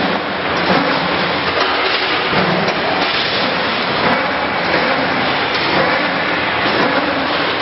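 OHA HA-4-12S CNC wire bending machine running, bending steel wire into stirrups: a steady, dense mechanical din with a light click about once a second.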